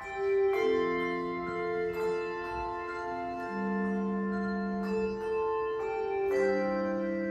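Handbell choir ringing sustained chords, with new chords struck about every one to two seconds, each ringing on beneath the next.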